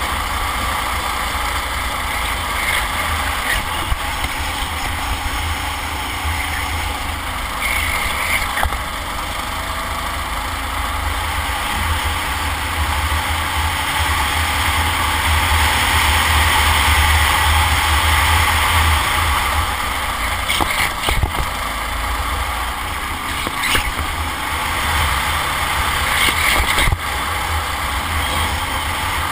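Go-kart engine running at racing speed, heard from a camera on the kart. It gets louder through the middle, along the straight, then eases off near the end.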